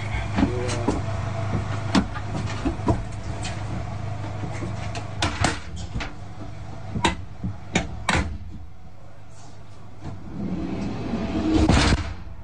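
Vehicle engine running with a steady low hum, over a series of knocks and clunks of doors and handling during the first eight seconds. It goes quieter, then a louder burst of noise comes near the end.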